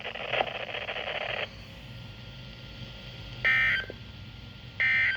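NOAA Weather Radio SAME digital data tones: short, buzzy bursts of two-tone data, two of them about a second and a half apart, after a hiss cuts off about a second and a half in. The bursts are the End-of-Message code that closes the weekly EAS test.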